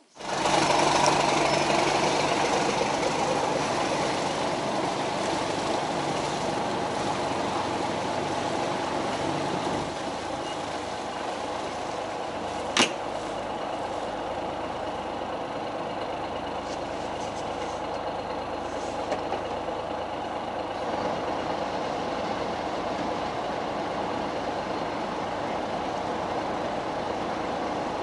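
Boat engine running steadily under way, with a broad rushing noise over it. The level eases a little about a third of the way in, and there is one sharp click about halfway through.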